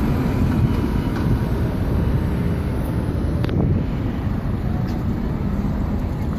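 Steady street traffic with buses running by, a continuous low rumble, with wind buffeting the microphone.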